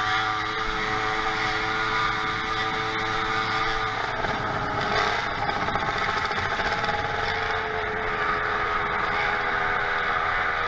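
Small engine of a motorized bicycle running while under way, mixed with road and wind noise. Its steady note gives way to a rougher, less even sound about four seconds in.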